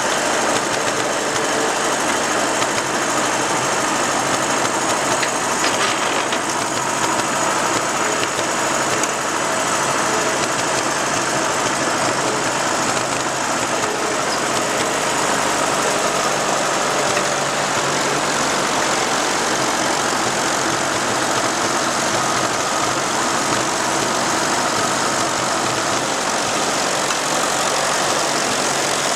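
Petrol four-cylinder engines of a tandem Ferguson TEA20 tractor rig running steadily while ploughing.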